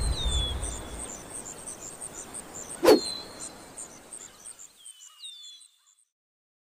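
Nature-ambience sound effect under a logo sting: a steady rapid train of cricket chirps with a few short falling bird calls, and a single sharp hit about three seconds in. The bass of the background music ends about a second in, and the whole fades out to silence shortly before the end.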